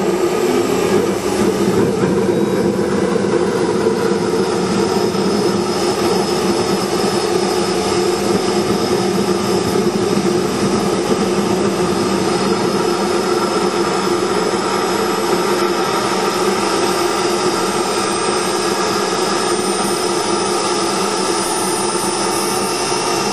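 NT-70 model jet turbine engine running steadily with a loud rush and a thin high whine, which stands out more clearly over the last few seconds.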